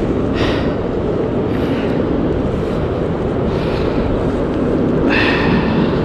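Steady low rumble of ocean surf and wind on the microphone at the beach, with a few short breaths close to the microphone.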